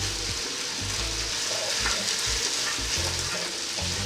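Sliced pork and onion sizzling steadily in a hot nonstick wok while being stirred with a wooden spatula.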